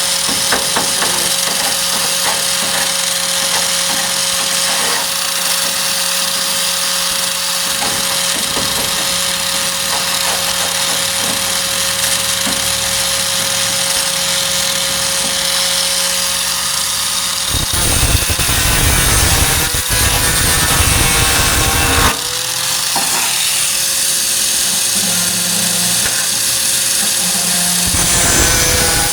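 A 4-1/2 in. angle grinder running with a steady high whine as it works the rusted sheet metal of a truck tailgate. About two-thirds of the way in, and again near the end, it grinds louder and rougher while its pitch dips under load.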